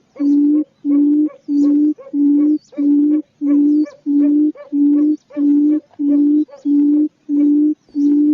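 Quail calling: a low, steady hooting note repeated evenly about twice a second, each note just under half a second long.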